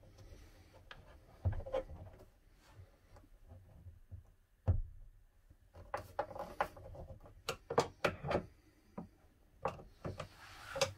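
Small metal-on-wood clicks and knocks from working a hand screwdriver and a gas strut's metal bracket against the underside of a wooden cabinet door, irregular and scattered, with louder knocks about a second and a half and nearly five seconds in.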